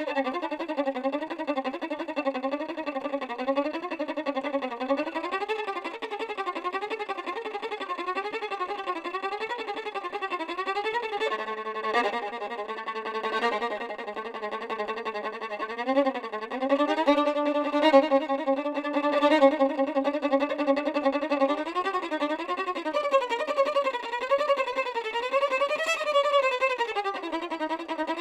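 Solo violin playing a slow melody with wide vibrato, with two or more notes sounding together for stretches in the middle.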